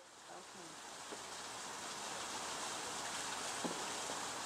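Steady hiss of outdoor background noise fading in over the first couple of seconds, with faint distant voices near the start.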